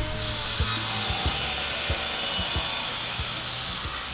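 Designed mechanical sound for a giant robot suit: a steady hiss over a low hum, with light ticks about every two-thirds of a second.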